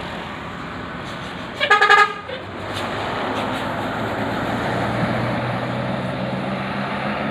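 A bus's telolet multi-tone horn sounding a quick burst of several short notes for about half a second, about two seconds in. After it, the bus's engine and road noise grow louder and hold steady.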